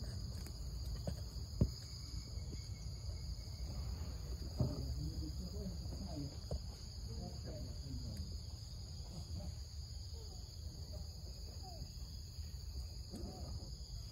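Steady high-pitched insect chorus over a low rumble, with two sharp knocks early on and faint short squeaky calls in the middle.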